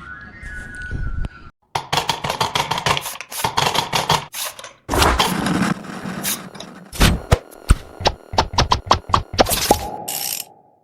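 A busy run of knocks, thuds and scraping clatter, with fast strings of sharp clicks, broken twice by sudden short silences.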